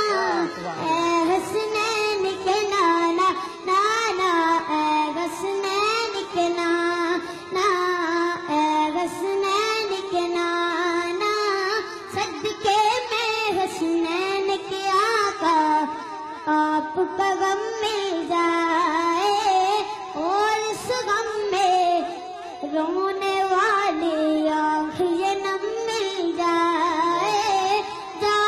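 A young boy singing a devotional Urdu song into a microphone: one continuous, ornamented melody with gliding, held notes.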